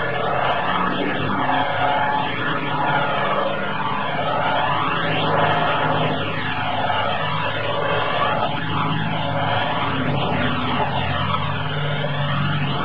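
Heavy off-road truck engine running hard under load, struggling through mud, with a swirling whoosh that sweeps through the sound every two to three seconds.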